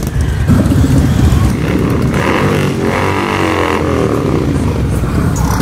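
Harley-Davidson touring motorcycles' V-twin engines rumbling as they ride slowly past, one after another. About halfway through, an engine rises and falls in pitch.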